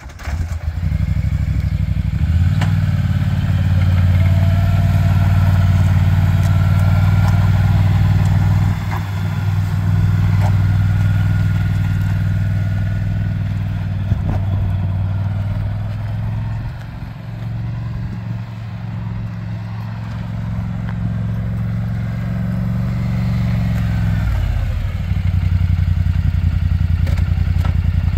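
2015 Polaris Sportsman 850 ATV engine starting up, then running as the quad is ridden off and back, its note dropping and rising a few times with the throttle and getting louder near the end as it comes close.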